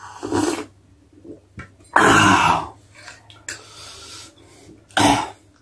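A man coughing and clearing his throat in several short, breathy bursts, the loudest about two seconds in and another near the end.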